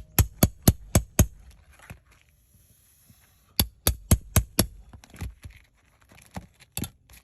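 Sharp, quick taps on asphalt roof shingles, struck in two runs of four or five at about four a second, then a few single taps. The shingles are being struck to show granules coming loose, a sign of granular loss from storm damage.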